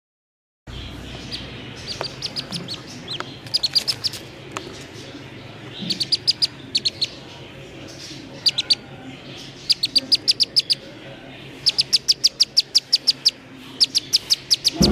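Black-bellied whistling duck chick giving its distress call, the call of a lost chick: runs of rapid, high peeps in groups of several, with short pauses between the groups.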